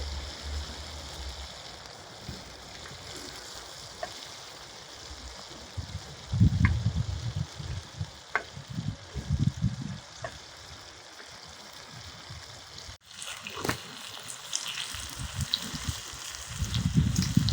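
Food frying in a pan, a steady sizzle with a few small crackles, with low bumps and rumbles partway through and again near the end.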